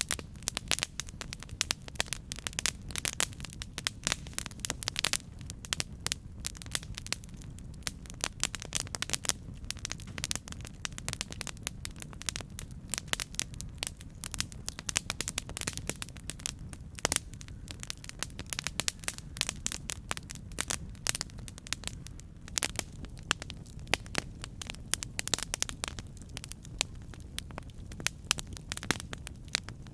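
Campfire burning: many sharp, irregular crackles and pops over a steady low rumble of the flames.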